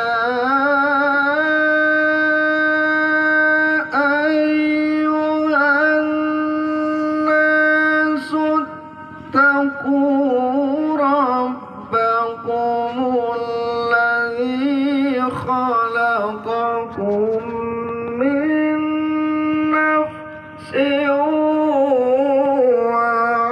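A male qari's melodic Quran recitation (tilawah), sung into a handheld microphone. One voice holds long drawn-out notes with wavering ornamental turns, broken by short pauses for breath.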